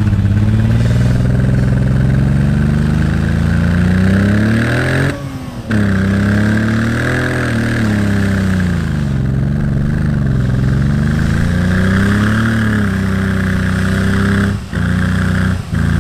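1990 BMW 525i's straight-six engine revving hard in a mud burnout, its pitch climbing and falling several times as the wheels spin in the mud. The sound breaks off briefly about five seconds in and twice more near the end.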